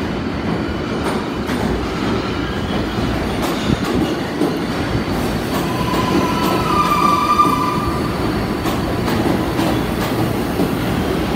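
New York City Subway R142-series 4 train pulling into a station and running along the platform: a steady rumble of steel wheels on rail with scattered clicks over the rail joints. A high squeal rings out for about two seconds past the middle.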